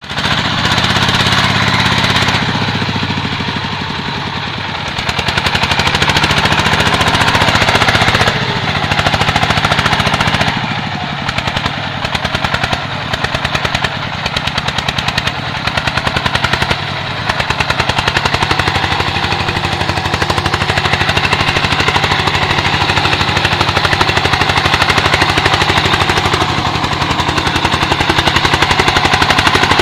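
Single-cylinder diesel engine of a công nông farm truck chugging hard with a rapid, steady pounding, the revs dipping and picking up a few times as it labours under load.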